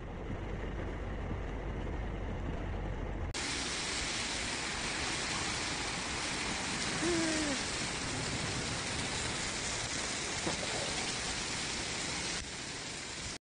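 Torrential rain pouring onto a flooded street, a steady hiss. About three seconds in it turns suddenly brighter and louder.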